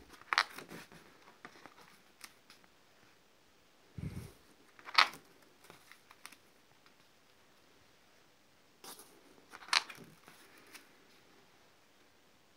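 Pages of a spiral-bound scrapbook being turned three times, about every four to five seconds. Each turn is a soft thump followed by a crisp snap and rustle of the stiff paper pages.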